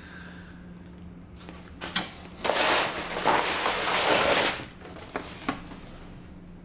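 Rustling of white wrapping as a plastic goose silhouette decoy is drawn out of its cardboard box, lasting about two seconds, with a few light taps and knocks before and after.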